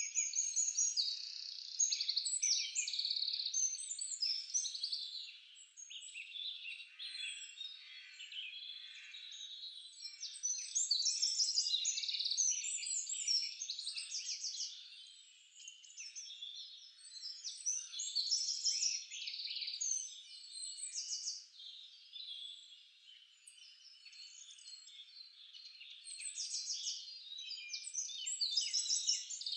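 Many small birds chirping and trilling over one another in a dense, continuous chorus that swells and fades in waves.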